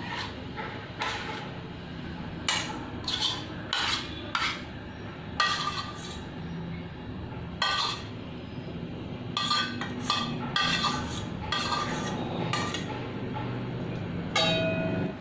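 A metal spoon scraping and knocking against a stainless-steel container and bowl, making irregular clinks as cold, hard malai (milk cream) is scooped out. The clinks ring briefly, and the loudest comes near the end.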